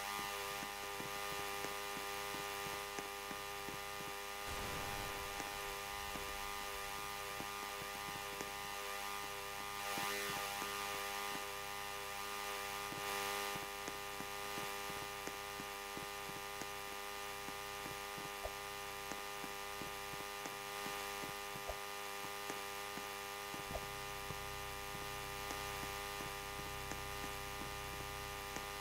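A steady electrical hum made of many fixed tones, with faint scattered ticks and two brief swells of hiss about ten and thirteen seconds in.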